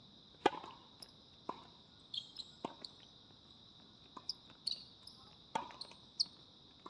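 Tennis ball struck by rackets and bouncing on a hard court during a rally, a string of sharp pops with the serve the first and loudest about half a second in. A steady high insect drone runs underneath.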